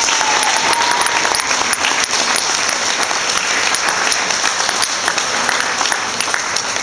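Audience applauding steadily, a dense mass of clapping.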